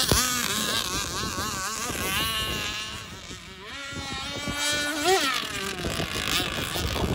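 Radio-controlled speedboat's motor buzzing at high revs as the boat speeds away across the water, its pitch wavering up and down with the throttle.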